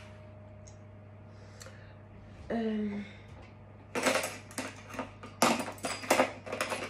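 Kitchen dishes and utensils clattering: a quick run of sharp clinks and knocks begins about four seconds in.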